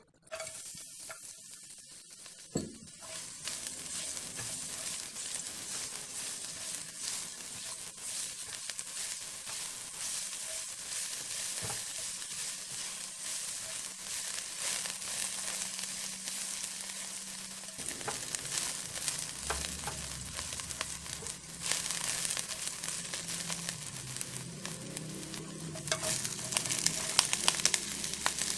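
Chopped garlic, scallion whites and dried red chilies sizzling in hot oil in a nonstick wok, starting suddenly as they drop in, stirred with a silicone spatula. The sizzle grows louder and more crackly near the end as napa cabbage stems go in.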